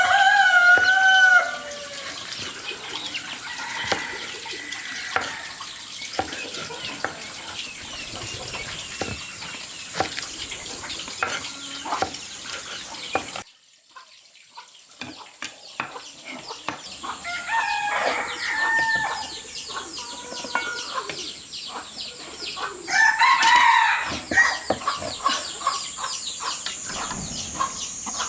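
Chickens calling, with a rooster crow at the start as the loudest sound and more clucking calls later, over a steady high-pitched buzz and many small clicks. The sound drops away abruptly about halfway through, then comes back.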